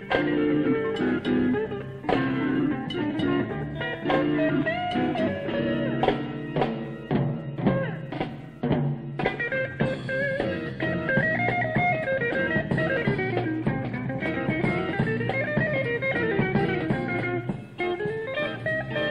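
A band playing an instrumental piece: guitar lines over a drum kit, with regular drum strokes throughout.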